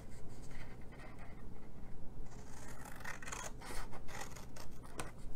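Scissors cutting through scored cardstock in a run of short snips, more of them in the second half.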